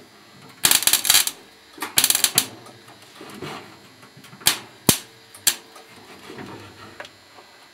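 Semi-automatic (MIG) welder's arc crackling in two short bursts, stitch-welding a thin sheet-steel floor patch in short runs to keep the panel from warping, followed by three sharp single cracks.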